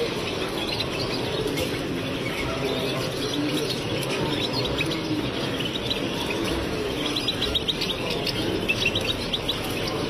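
Many caged finches chirping in quick runs of short, high notes, busiest about four seconds in and again from about seven seconds, over a steady low background hubbub.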